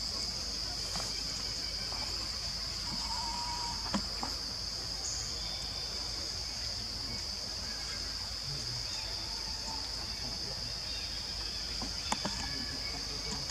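Steady high-pitched drone of insects, with a couple of sharp clicks about four seconds in and again near the end.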